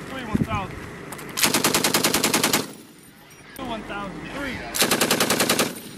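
Belt-fed machine gun firing two bursts of about a second each, at roughly ten shots a second, with a pause of about two seconds between them.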